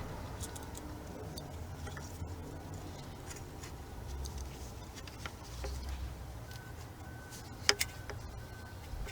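Light scattered clicks and taps of hand work on an engine while a new VVT-i oil control valve is fitted, with one sharper click about three-quarters of the way through.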